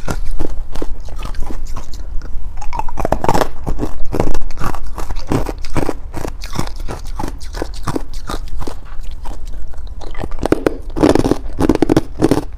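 A person biting and crunching hard chunks of buckwheat ice and frost ice, a quick, uneven run of sharp crunches with heavier chewing about three seconds in and again near the end.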